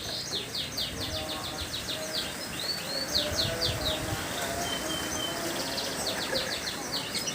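Lovebird ngekek: a long, rapid chattering run of sharp, high chirps, about five a second. The run breaks off near the middle, with a short steady note, then starts again near the end.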